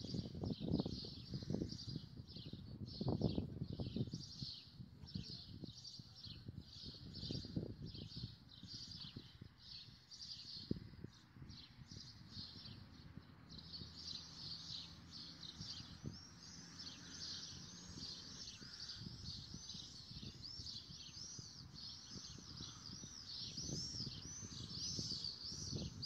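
A flock of small birds chirping rapidly and continuously, thinning out briefly about halfway through. Soft rustling and knocks of book pages being handled and turned come in the first few seconds and again a little later.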